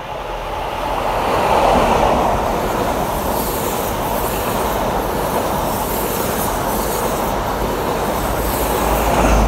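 InterCity 125 High Speed Train passing at speed. A rising rush as the leading Class 43 power car arrives is followed by a steady rumble of Mk3 coach wheels on the rails, then a louder swell near the end as the rear power car goes by.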